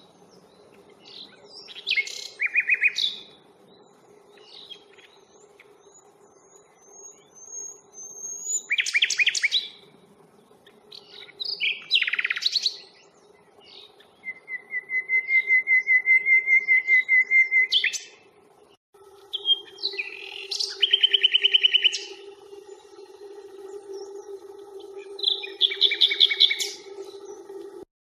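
Common nightingale singing: loud, varied phrases separated by pauses, one of them a long run of rapid repeated notes about halfway through. A low steady hum runs underneath.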